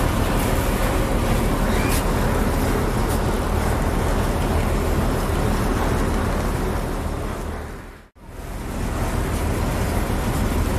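Small river ferry's engine running with a steady low rumble. It dips briefly to near silence about eight seconds in, then comes back.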